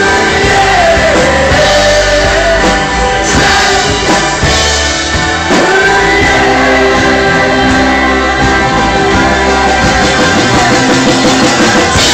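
Live rock band playing loud, with singing over drums, electric guitar and keyboards.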